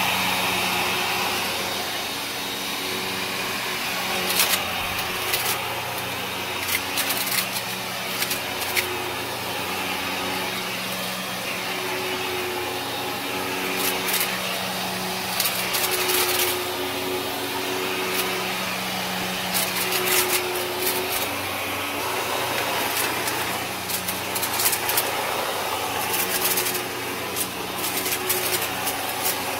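Kenmore upright vacuum cleaner running on carpet, its motor giving a steady hum, with frequent sharp crackles and clicks as grit and debris are sucked up: the crunch of a natural vac on real dirt.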